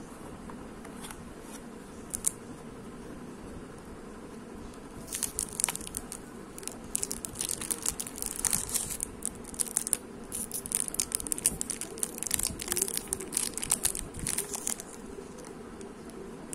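Clear plastic wrapper crinkling and crackling in irregular bursts for about ten seconds as a fountain pen is slid out of it, after a single sharp click about two seconds in.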